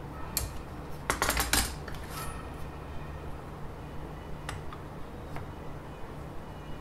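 Metal clinks and taps from a steel square and steel ruler being handled and set against each other: one click, then a quick cluster of clinks about a second in, then a few single light taps.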